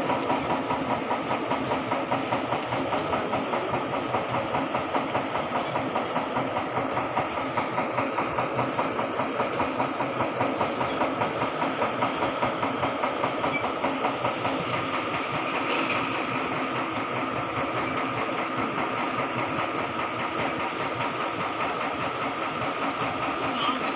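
Motor of a paddy-field dewatering pump at a pumping station running steadily, a regularly pulsing mechanical hum. A brief hiss about two-thirds of the way through.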